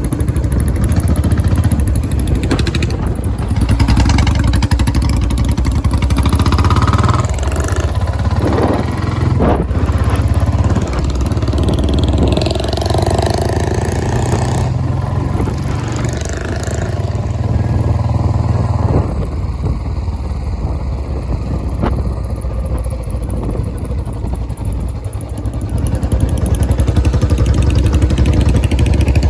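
Royal Enfield Bullet Electra 350's single-cylinder four-stroke engine running through a large aftermarket 'Punjabi' silencer, with a steady deep exhaust beat. It grows louder near the end.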